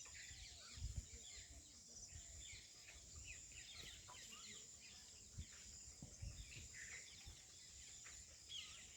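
Many small birds chirping faintly, short quick calls overlapping throughout, over a steady high-pitched hiss.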